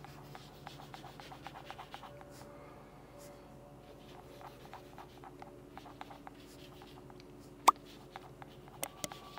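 Paintbrush dabbing and scrubbing oil paint onto a taped-down sheet: many faint, short, brushing strokes. There is one sharp click about three-quarters of the way through.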